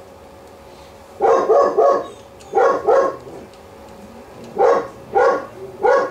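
Dogs barking in short bouts of a few barks each, with brief pauses between the bouts.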